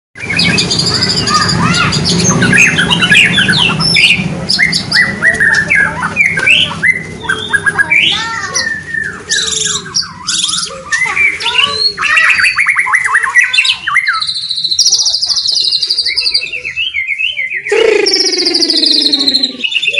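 White-rumped shama (murai batu) singing a loud, varied song of quick whistles, chattering phrases and trills. A steady buzzy trill comes a little after two-thirds through, and harsher falling calls come near the end.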